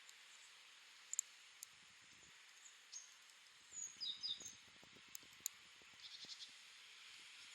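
Small birds chirping faintly over a steady outdoor hiss: a few short high calls, then a quick trill of repeated notes near the end. A handful of light, sharp clicks, likely the metal knitting needles touching, come about a second in and again about five seconds in.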